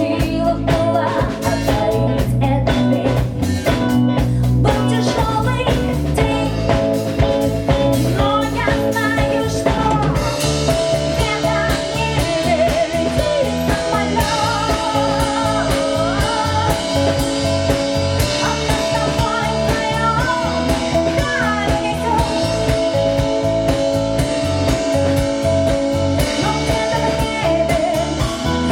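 Live rock band playing: drum kit and electric guitar, with a melody line over them. The sound gets fuller and brighter about ten seconds in.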